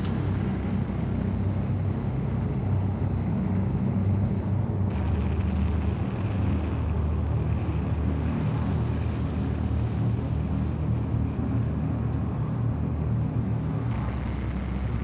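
A cricket chirping evenly, about three times a second, over a steady low rumble.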